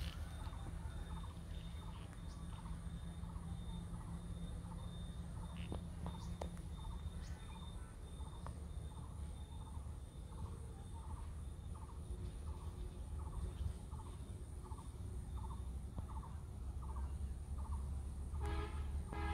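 A bird calling a short note over and over, about one and a half times a second, over a steady low rumble; near the end a louder, fuller call with several pitches.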